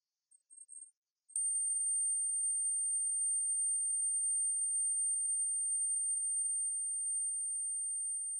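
A steady, very high-pitched pure tone played as a mosquito-repelling 'ultrasound'. It starts abruptly with a click about a second in, after a few faint short blips at the same pitch.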